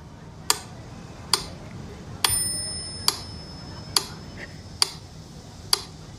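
Steady ticking, a little more than one tick a second, with a single bell-like ding about two seconds in that rings on and fades.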